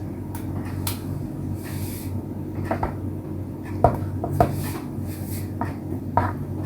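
Scattered light knocks and clicks of kitchen things being handled while a layered mango graham dessert is assembled, about eight irregular taps, over a steady low hum.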